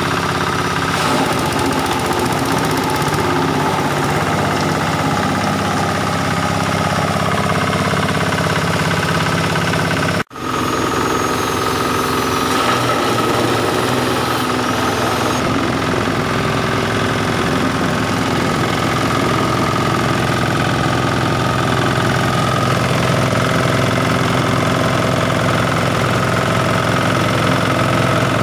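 Engine-driven grass chopper running steadily while grass stalks are fed into its hopper and chopped. The sound breaks off for a moment about ten seconds in, then carries on the same.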